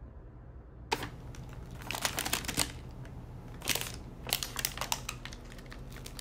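Paper rustling and crinkling in irregular bursts, starting about a second in, as a paper bakery bag is handled and paper-wrapped pastries are taken out of it.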